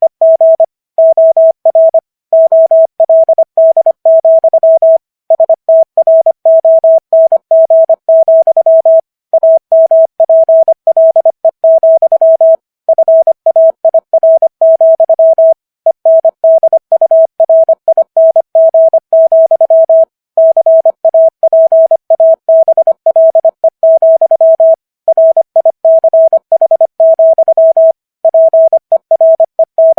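Morse code sent at 25 words per minute as a single pure tone keyed on and off in quick dots and dashes, with longer gaps between words, spelling out Walt Whitman's poem 'America'.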